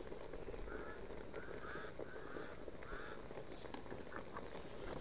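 Short honking bird calls, about six in a few seconds, over a steady low background noise.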